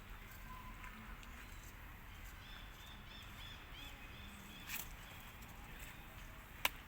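Faint outdoor background with a quick series of short, high chirps from an animal about two and a half seconds in, and a sharp click near the end.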